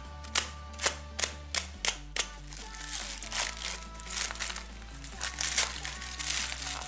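Paper and plastic parcel wrapping crinkling and crackling as it is torn open by hand, with sharp crackles coming about twice a second in the first two seconds. Background music plays underneath.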